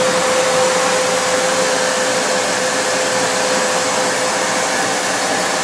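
Hair dryer running steadily, a loud even rush of blowing air with a steady hum, blown on an iPod Nano to soften its glue.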